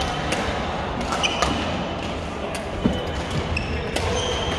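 Badminton rackets striking shuttlecocks in a large sports hall with several games under way, giving a scatter of sharp cracks, the loudest nearly three seconds in. Short high squeaks of court shoes on the wooden floor come between the hits over a steady hall din.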